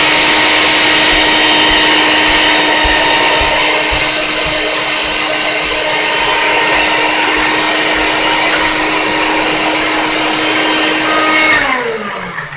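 NutriBullet blender running at full speed, chopping a thick mix that includes chunks of frozen pita bread and crackers. The motor runs steadily with a constant hum, then winds down near the end, its pitch falling as it stops.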